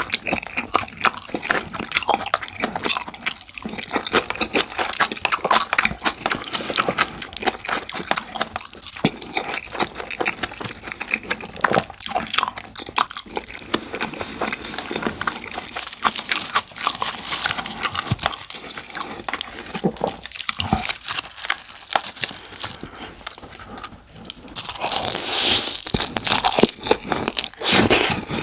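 Close-miked eating sounds: wet chewing and crunching of rice with curry and black bean sauce, and kimchi, with many small sharp clicks. A louder hissing stretch comes near the end.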